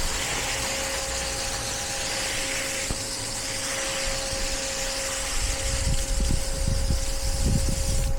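Water spraying from a garden hose nozzle: a steady hiss, with a thin steady tone running under it. Wind buffets the microphone in the last couple of seconds.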